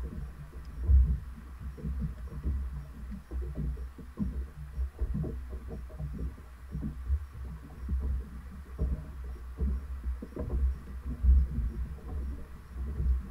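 Wind buffeting the microphone: an uneven low rumble that swells in gusts, with scattered small knocks.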